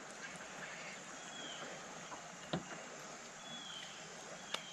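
Quiet open-water ambience with a steady faint hiss, two faint short falling chirps, and a couple of small clicks as the hook is worked out of a smallmouth bass's mouth.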